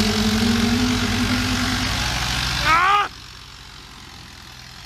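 Farm tractor diesel engine running loud and close, with a steady whine over it. About three seconds in there is a short cry-like sound that rises and falls, and then the sound drops abruptly to a much quieter engine.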